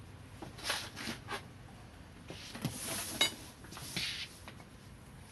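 A long steel ruler and a clear plastic grid ruler handled on pattern paper: short rustling and sliding noises, with one sharp metallic clink that rings briefly a little past three seconds in as the steel ruler is set down.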